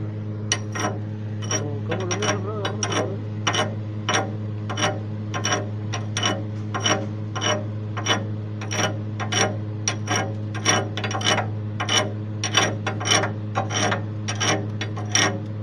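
Chipping hammer knocking slag off a freshly laid 7018 stick-weld bead: a long series of sharp metallic taps, about two a second, irregularly spaced. Under it runs a steady electrical hum from the welding machine.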